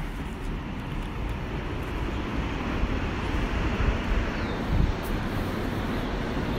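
Wind buffeting the phone's microphone, a steady low rumble with a few stronger gusts around the middle.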